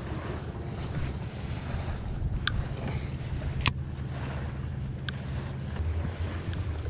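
Wind buffeting the microphone with a steady low rumble, and three sharp clicks from a baitcasting reel being handled, the loudest about three and a half seconds in.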